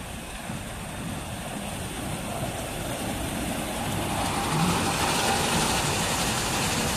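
Automatic rollover car wash running: its rotating brushes and water spray make a steady rushing noise that grows louder, turning hissier from about four seconds in.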